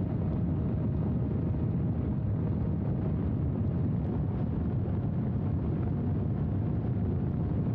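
Steady wind rush and low rumble on the microphone of a small camera riding on an RC flying wing in flight, with a faint steady hum from its electric motor and propeller underneath.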